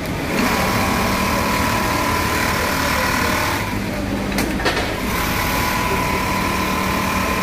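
Industrial sewing machines running with a steady mechanical whine. The whine drops out for about a second and a half just past halfway, with two sharp clicks in the gap, then comes back.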